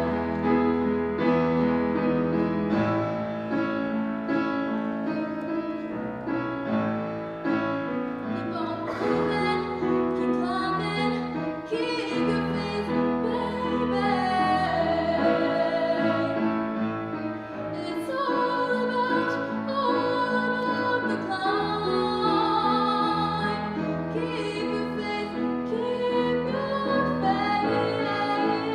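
Classical soprano voice singing with vibrato, accompanied by a grand piano.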